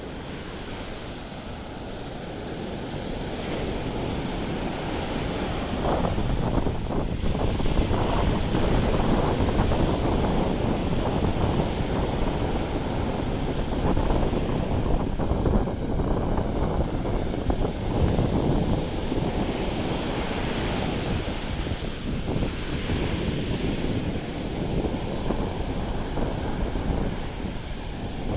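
Sea surf breaking and washing up a beach, swelling and ebbing over several seconds, with wind rumbling on the microphone.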